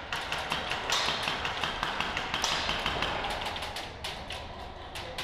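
Airsoft gunfire: a dense run of sharp clicks and taps from shots and BBs striking, busiest in the first few seconds and thinning toward the end.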